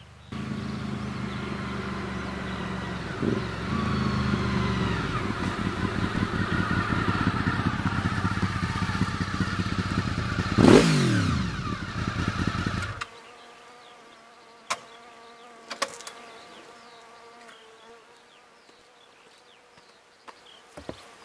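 Honda VFR's V4 engine through a Beowulf aftermarket exhaust, running as the bike rolls up and then blipped once sharply a little after halfway, the revs falling straight back. The engine cuts off a couple of seconds later, followed by two light clicks.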